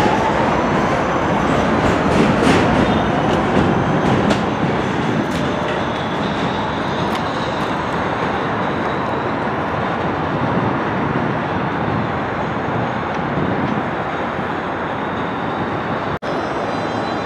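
New York City Subway R160 train running on an elevated track: a steady rumble and clatter of steel wheels on the rails, with a faint whine shifting in pitch near the start. The sound drops out briefly near the end.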